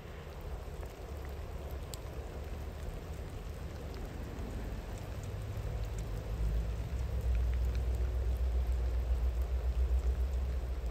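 Steady rain with scattered drops, under a low rumble of a distant train that grows louder from about halfway in.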